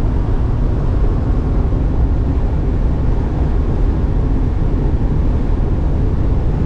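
Steady driving noise inside the cab of a Ford E-Series van on the move: engine and road noise making an even, low rumble.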